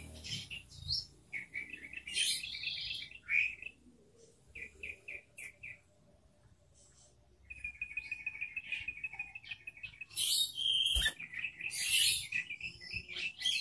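Yellow-vented bulbul (trucukan) calling: short bursts of quick chirping notes, a pause of a second or so in the middle, then a fast run of notes and louder chattering phrases in the second half. A single soft knock comes near the end.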